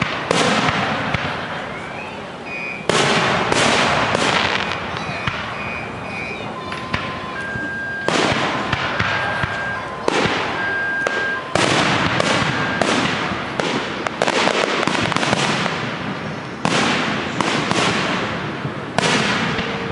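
Fireworks display: aerial shells bursting, each bang fading out over a second or so, several times in quick clusters of three or four. Faint high steady whistling tones sound between the bursts.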